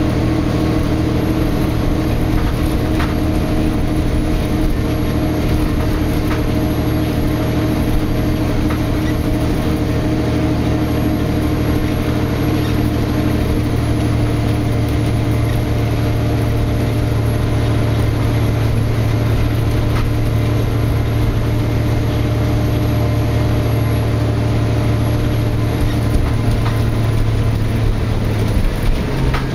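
Cummins ISL9 diesel engine of a Nova Bus LFX city bus heard from inside the cabin, holding a steady drone with road and body noise as the bus drives along. Near the end the engine note changes and a few knocks come through.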